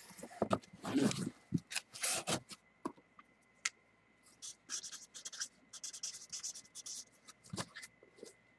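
Handling noise of a plastic-bagged jersey and cardboard boxes: irregular rustling and scraping in spells, with a few light knocks.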